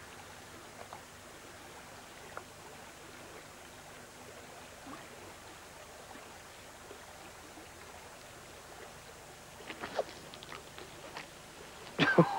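Faint steady hiss of outdoor river-bank ambience with a few soft ticks, and a short cluster of clicks about ten seconds in.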